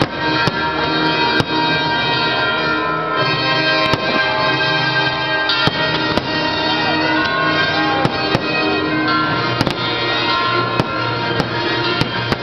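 Fireworks finale: a dozen or so sharp shell bursts, roughly one a second, over loud music with long held tones.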